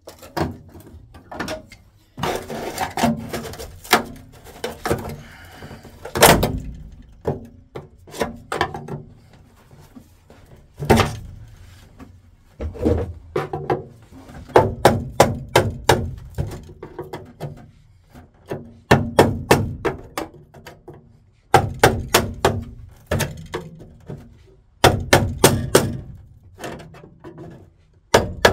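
Hammer blows driving a flat screwdriver into the spot-welded seam between sheet-steel floor panels to split them apart: sharp metallic taps in repeated bursts of several quick strikes with short pauses.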